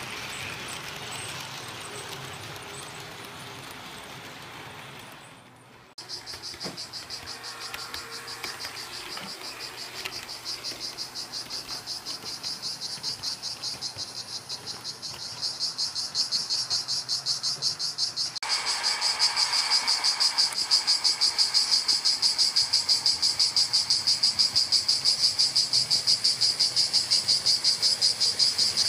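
HO-scale model trains rolling on their track, with a high, evenly pulsing chirp about four times a second from a few seconds in. The chirp grows louder for the last ten seconds and is then the loudest sound.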